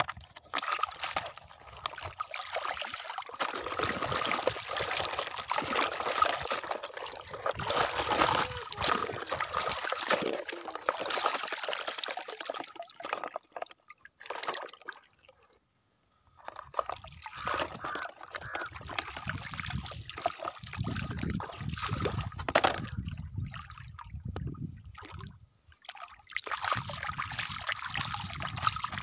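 Shallow water sloshing and trickling as wet mud is scooped, tipped and pushed around by hand with a plastic toy dump truck bin, with small splashes throughout and a brief lull about halfway.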